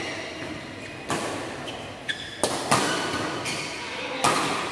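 Badminton rackets striking a shuttlecock in a rally: four sharp hits about a second or so apart, two of them close together, echoing in a large hall.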